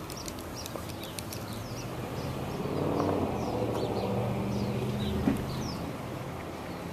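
Small birds chirping over and over, with a low vehicle engine hum that swells through the middle and fades again, and a single short tap a little after five seconds.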